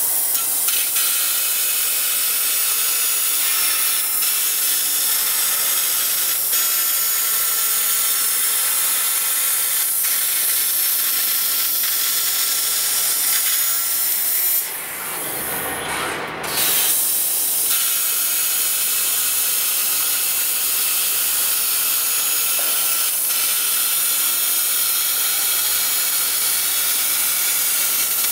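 3000 W Senfeng SF6035T fiber laser pipe cutter cutting a steel I-beam: a loud, steady hiss of gas jetting from the cutting nozzle, with a faint steady tone underneath. About halfway through, the hiss stops for about two seconds, with a lower rushing sound in between, then starts again.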